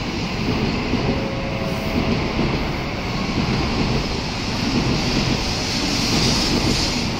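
Tokaido Shinkansen train moving past close by along the platform: a steady rumble of wheels and running gear with rushing air. The hiss grows louder about five seconds in.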